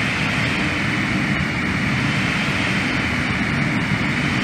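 Underground mine ventilation fan running in stall against an almost blocked airway: a loud, steady rushing with a low rumble and a hiss that swells and eases slightly. It is a sound likened to the blowing of an old train, and it is taken as a warning of premature fan failure.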